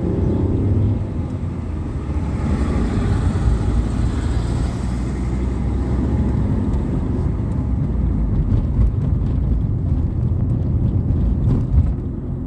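Steady low road and engine rumble inside the cabin of a moving car, with a louder hissing swell between about two and six seconds in.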